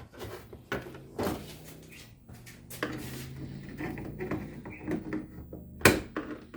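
Parts and tools being handled while working on a car: a string of irregular sharp knocks and clatters, the loudest just before the end, over a faint low hum in the middle.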